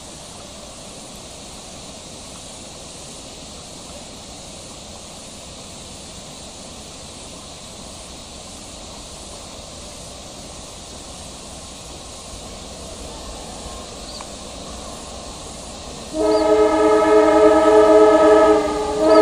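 Passenger train approaching with a faint, steady running noise. Then, about three seconds before the end, its diesel locomotive sounds a loud multi-tone horn in a long blast, followed by a short second blast.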